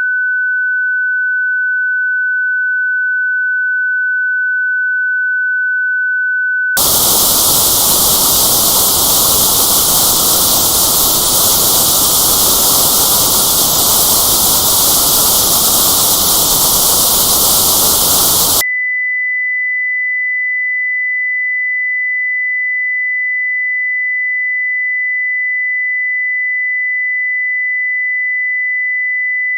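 Tinnitus-matching test signal: a steady pure test tone of about 1.5 kHz, then about seven seconds in it switches abruptly to loud white noise with a band around 2 kHz notched out. About eighteen seconds in the noise cuts off and a steady pure tone of about 2 kHz begins, the frequency that was in the notch.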